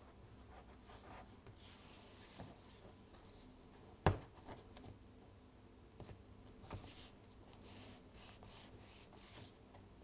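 Faint rubbing and scraping of thin plastic strips being worked into plastic I-beams on a cutting mat. One sharp tap about four seconds in, with a few softer ticks later.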